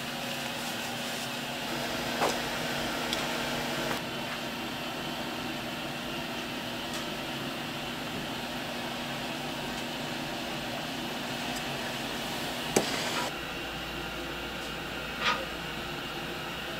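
Steady machine hum and noise, with a few short sharp knocks or clicks: one about two seconds in, a louder one about 13 seconds in, and another near 15 seconds.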